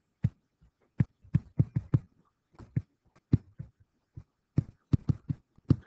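Stylus tapping and knocking on a writing surface during handwriting: a string of soft, irregular taps, several a second.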